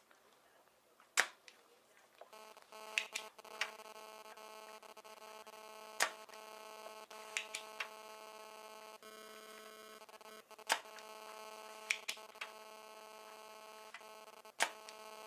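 Electric desoldering tool humming steadily; the buzz starts suddenly about two seconds in. Sharp clicks and taps come every second or two as it works the capacitor pins on the board.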